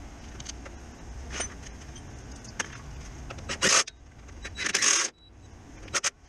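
DeWalt 20V cordless drill spinning out a transmission bolt through a socket, run in two short bursts a little under a second apart, the second one longer. Before that, a few light metallic clinks from the socket and tools.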